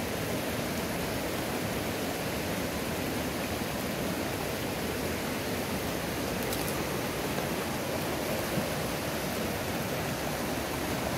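Small mountain river rushing over rocks and shallow rapids, a steady, even rush of water.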